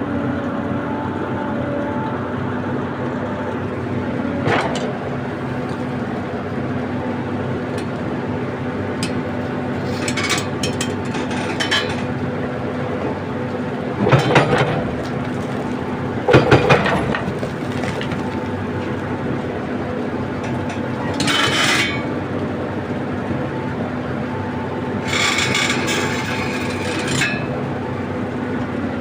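Heavy-equipment engine running steadily, with a dozen or so short bangs, crunches and scrapes of working gear breaking in over it.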